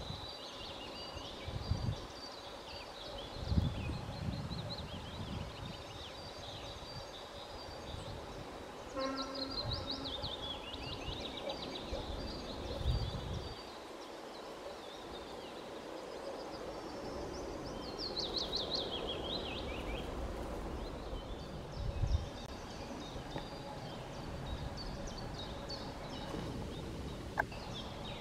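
Wild songbirds singing outdoors: repeated high chirping phrases, several of them quick descending trills, over a faint steady background hum. A few brief low rumbles break in.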